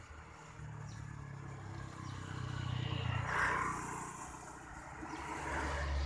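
A motor engine running close by, its hum growing louder to a peak about three seconds in, easing, then swelling again near the end.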